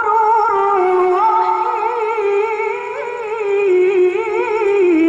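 A teenage girl's voice in melodic Quran recitation (tilawah), holding long ornamented notes with quick wavering turns in pitch.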